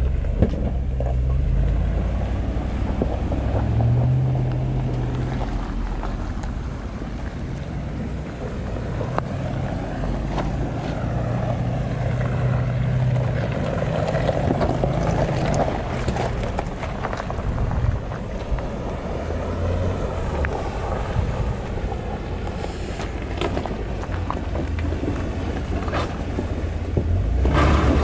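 Off-road SUVs driving slowly through a shallow creek crossing: engines running low with water noise, and wind on the microphone. It grows louder near the end as a vehicle comes close.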